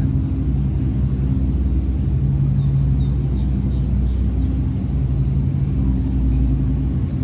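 A steady low rumble with a droning, machine-like hum that does not change.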